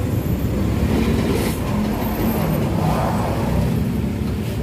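Steady low rumble of street traffic, with large vehicles passing close by.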